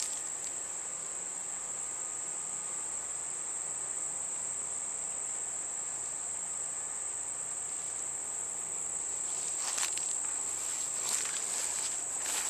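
A steady, high-pitched insect chorus of crickets or similar summer insects, unbroken throughout. A few brief footsteps sound near the end.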